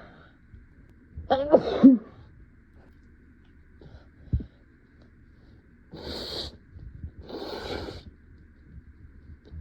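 A person's loud voiced sneeze, one of a desperate sneezing fit brought on by irritation, about a second and a half in. A short knock follows a few seconds later, then two noisy breaths.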